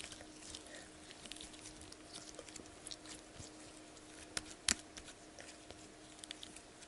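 Soft Poopsie slime kneaded and squeezed between the fingers: faint wet, sticky clicks and squelches, with two sharper pops a little past the middle.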